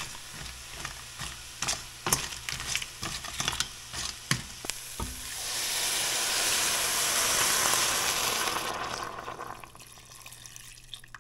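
Green crab pieces sizzling in a hot stainless steel pot while a wooden spoon stirs them, knocking and clattering against the shells and the pot. About five seconds in, water poured from a jug rushes into the hot pot, the loudest part, building and then fading near the end.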